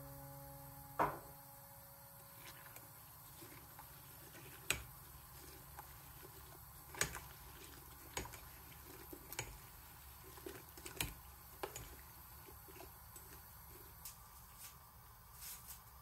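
A metal spoon stirring apple pieces in syrup in a stainless steel pot. There are scattered light clinks of the spoon against the pot and soft wet sounds of the fruit and liquid.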